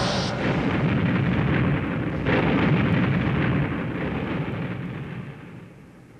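Explosion sound effects: a low rumbling blast, a second blast breaking in about two seconds in, then the rumble dying away over the last couple of seconds.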